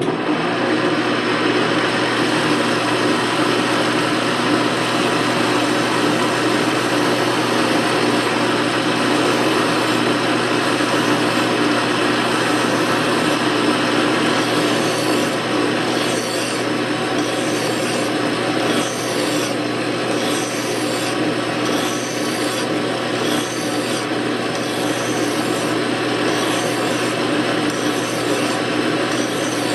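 Atlas metal lathe switching on and running steadily as it turns a steel lathe spindle, with a flat hand file rubbing against the spinning spindle to clean it up.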